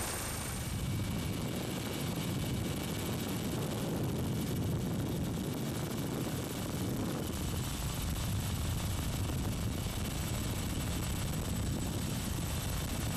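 Helicopter rotor and engine running steadily, heard from on board: a constant low rumble with no change in pitch.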